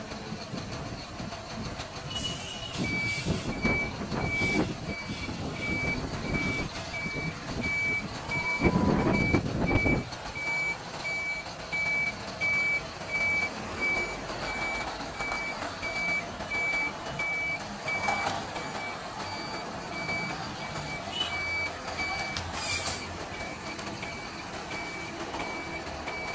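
BharatBenz 2823C tipper truck reversing, its reverse alarm sounding a regular series of high beeps from about three seconds in over the running diesel engine. A louder rush of noise comes about nine seconds in.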